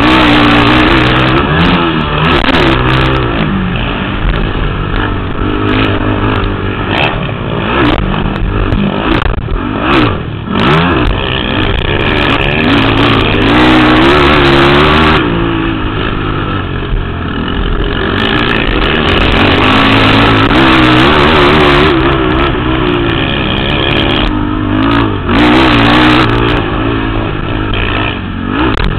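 Motocross quad (ATV) engines racing, revving up and dropping back again and again as the riders accelerate, shift and back off around the track.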